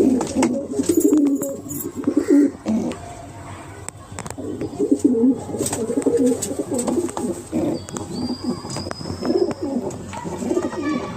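Domestic pigeons cooing over and over in low, rolling calls, with a pause about three seconds in, and a few sharp clicks among them.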